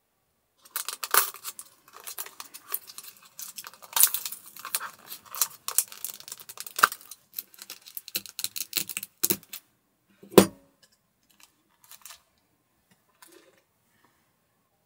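Crinkling and crackling of thin plastic packaging for about nine seconds as a pudding cup's plastic lid is peeled off and a plastic spoon is unwrapped. This is followed by a single sharp knock about ten seconds in, then a few faint small clicks.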